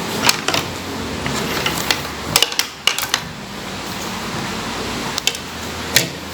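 Light clicks and taps from a wire end being worked into a terminal of a four-way wall switch, a handful of sharp clicks in three clusters, over a steady low hum.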